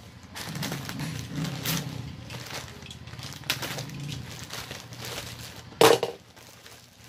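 Plastic courier pouch being cut open with a box cutter, crinkling and crackling in uneven rustles as it is handled and pulled apart, with one loud sharp sound near the end.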